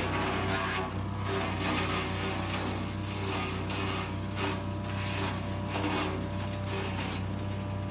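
Petrol garden wood chipper's engine running steadily, with irregular bursts of crackling, shredding noise every second or so as cut branches are fed in and chipped.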